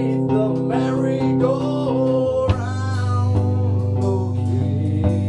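A man singing over sustained electric guitar chords, the chord changing about two and a half seconds in.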